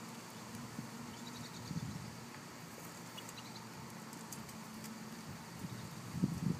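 Finches feeding at a caged tube seed feeder: soft pecking and scratching at the seed tray, with a few faint, short high chirps. About six seconds in, a louder brief flutter as another bird lands on the cage.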